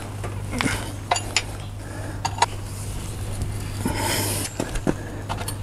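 A metal combination spanner clinking and scraping against the front axle nut and hub of a motorcycle as the front axle is loosened: scattered sharp clinks, with a short scraping rattle about four seconds in.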